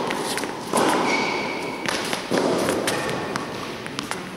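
Tennis balls being tossed, caught and bouncing on the indoor court's hard floor: a few loud thuds, each ringing on in the big hall's echo, with lighter taps between.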